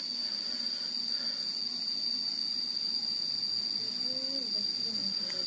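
An insect's steady, high-pitched trill, unbroken, over a low outdoor hiss.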